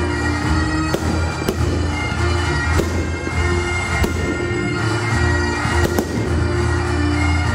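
Bagpipe music, with a steady drone under a stepping melody, over fireworks going off in sharp bangs about once a second.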